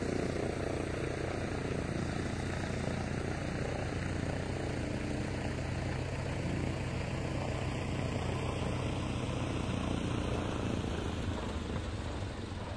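Floatplane's engine and propeller running steadily, a low hum, as the plane moves across the water on its floats.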